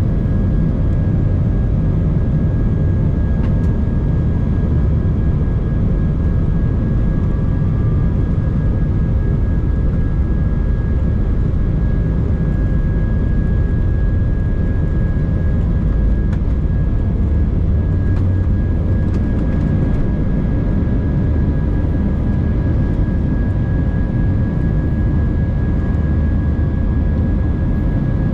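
Cabin noise inside an Airbus A319 under climb power: a steady low roar of the jet engines and airflow, with a steady high whine over it.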